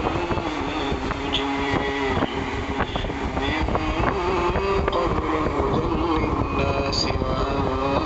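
Audio playing through a small Audionic Coco C7 Bluetooth speaker from a docked phone: a melodic line that holds notes and slides between them.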